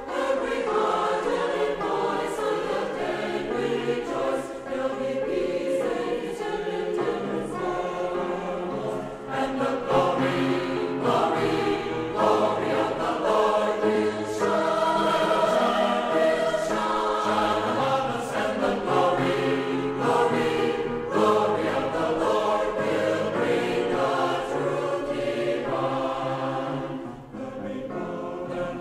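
Background choral music: a choir singing held chords that change every second or two, without clear words.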